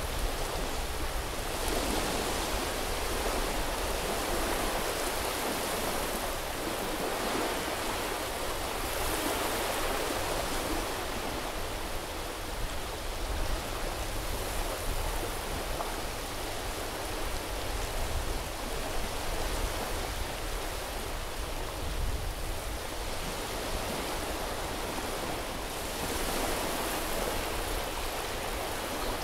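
Small sea waves washing onto a beach: a steady hiss of surf that swells gently now and then.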